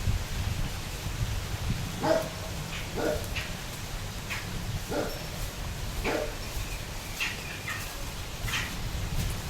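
A dog barking about four times, a second or so apart, while small birds chirp in between, over a steady low rumble.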